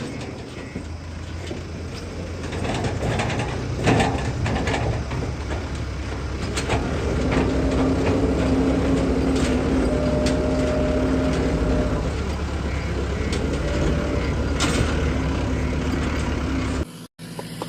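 JCB backhoe loader's diesel engine running under load, its note building and holding steady through the middle, with several sharp metallic clanks from the working machine.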